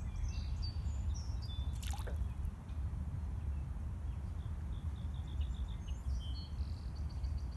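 A single small plop of something dropping into shallow water about two seconds in, with high chirping bird calls and a steady low wind rumble on the microphone.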